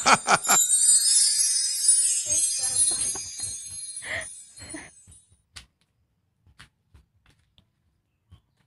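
High, tinkling jingle like small bells or chimes, ringing out and fading away over about four seconds, followed by a few faint taps.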